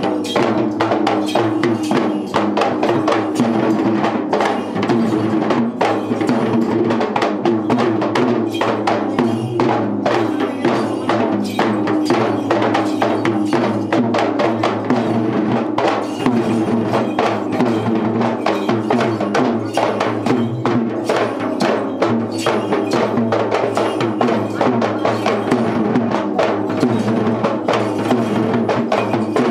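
Yak bera, the double-headed hand drums of a Sri Lankan tovil devil dance, beaten in fast, unbroken rhythmic strokes.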